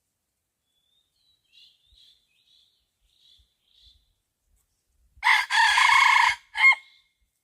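A rooster crowing once, loud, with a short break before its last note, about five seconds in. Faint high chirps come before it.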